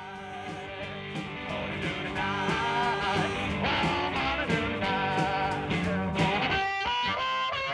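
Background music: a guitar-led instrumental with held, bending notes, fading up in the first couple of seconds.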